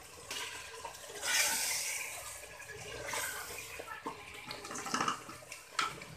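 Chicken and masala sizzling in oil in a pan as a wooden spatula stirs it, with a louder burst of hissing about a second in and a few sharp scrapes and knocks of the spatula against the pan in the second half. The spices are being fried until the oil separates.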